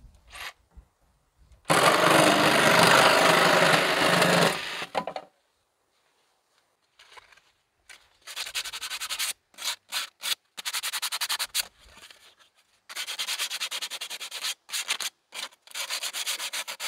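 A loud, steady burst of about three seconds as a thin wooden board is cut with a small handheld power tool. Then, from about eight seconds in, bursts of rapid back-and-forth strokes of sandpaper rubbed along a thin strip of wood.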